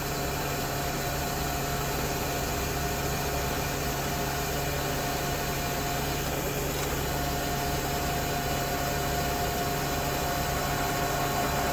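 Milling machine running steadily with a center drill feeding in to spot the hole and cut a small chamfer: an even motor hum with a faint steady whine.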